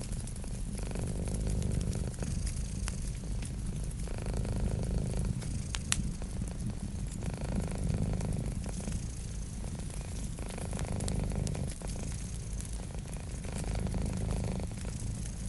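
Cat purring steadily, swelling and fading every couple of seconds, over the fine crackle of a wood fire, with one sharp crack about six seconds in.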